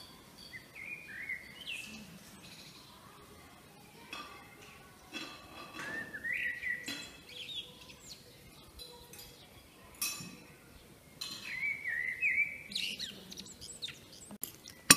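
Birds chirping in a few short bouts of quick, gliding calls, with faint clinks of dishes and cutlery between them. A single sharp click comes near the end.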